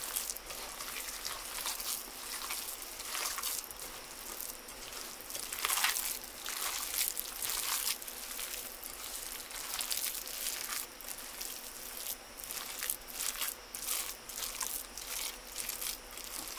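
Hands kneading and squeezing raw meatloaf mixture of ground meat, oatmeal and eggs in a bowl: irregular wet squelching, a little louder about six seconds in.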